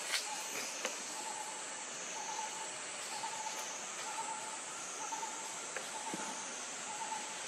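Outdoor forest ambience: a steady high-pitched insect drone, with a short mid-pitched note repeating about once a second and a few faint clicks.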